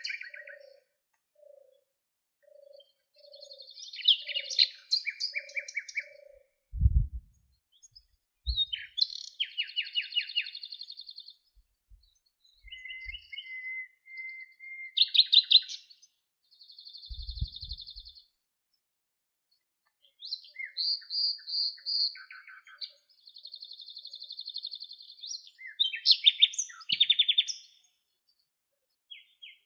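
Several songbirds chirping and singing in short bursts of rapid trills, with a slow series of soft low notes during the first six seconds. A few low thumps come about seven and seventeen seconds in.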